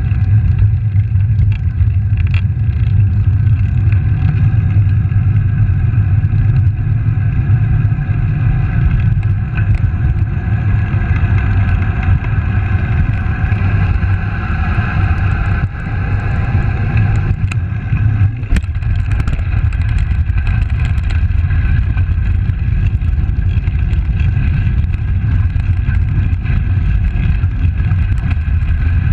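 Wind buffeting the microphone of a handlebar-mounted camera on a moving road bike, mixed with the tyres rolling on asphalt: a steady, loud rumble with a faint hum above it that swells a little midway.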